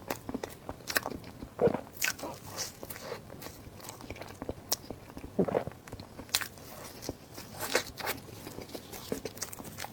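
A person eating close to the microphone: irregular crunchy bites and chewing, with a few louder crunches now and then.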